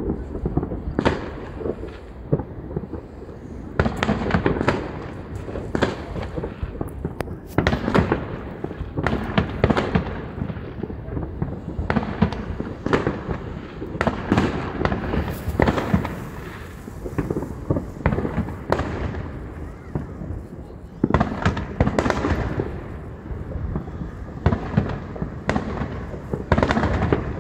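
New Year's fireworks going off all around in a dense, unbroken barrage of sharp bangs and crackles, several a second, with louder bangs scattered through.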